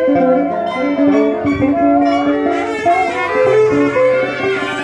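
A Vietnamese traditional ensemble (hòa đờn) playing an instrumental piece of southern ceremonial music on bowed and plucked string instruments, the melody held in long notes with sliding, bent pitches.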